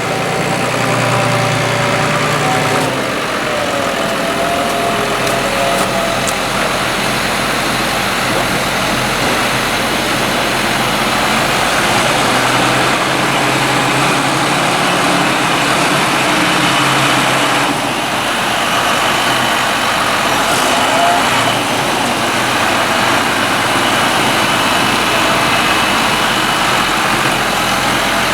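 Diesel engine of a farm harvest machine, such as a tractor or forage harvester, running steadily.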